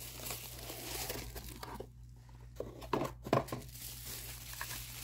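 Packaging crinkling and rustling as a small organizer box is handled and unwrapped, with a few sharp clicks and knocks about three seconds in.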